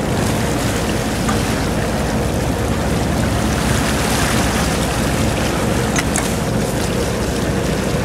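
Steady wind on the microphone and open-ocean water rushing and splashing along a fishing boat's hull, over a low, steady hum from the boat. A brief tap about six seconds in.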